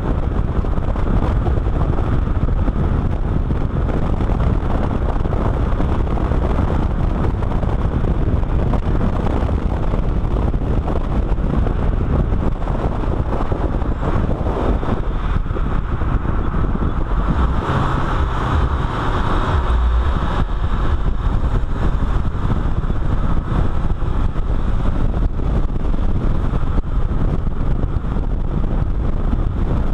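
A car driving at speed, heard from a camera mounted low on its side: a steady mix of engine, tyre and road noise with wind buffeting the microphone. The noise brightens briefly about two-thirds of the way through.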